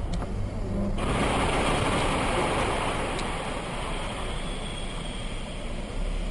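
Car driving noise picked up inside the car: a low engine hum, then a sudden jump about a second in to a steady, loud rushing of road and tyre noise.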